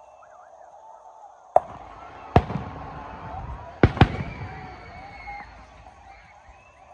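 Aerial fireworks shells bursting: four sharp booms, the last two close together, each followed by a rolling echo.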